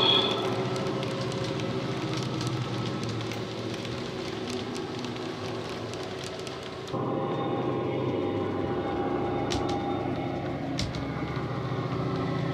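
OO-gauge model train running: coaches rolling and clicking over the track, with the simulated Class 68 diesel engine sound from a Coastal DCC sound decoder playing through the model's EM2 speaker as a steady deep hum. About seven seconds in the sound changes suddenly and gets louder, with clearer steady engine tones and a couple of sharp clicks.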